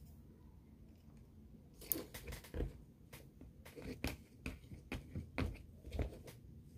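Fingers digging and squishing through a wet, water-swollen mix, giving a run of irregular small wet clicks and crackles that starts about two seconds in.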